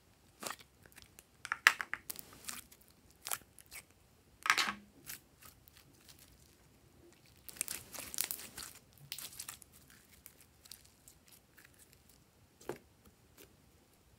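Plastic slime container being opened and glittery slime pulled out and stretched by hand: scattered sticky crackles and clicks, a longer crinkly tearing sound about four and a half seconds in, a dense patch of crackling a few seconds later, and one soft knock near the end.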